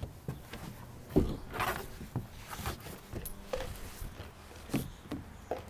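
A toddler moving about on a hollow plastic playset: one sharp thump about a second in, then scattered knocks and rustles.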